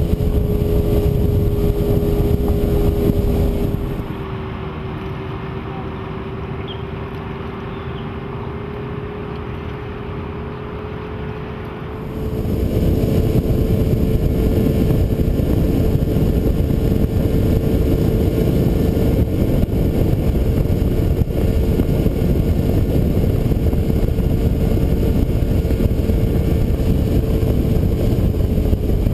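Yamaha 150 HP V6 outboard running at a steady speed, its even hum over the rush of wind and water as the boat planes. The sound drops to a quieter, duller level from about four seconds in, then comes back up at full loudness about twelve seconds in.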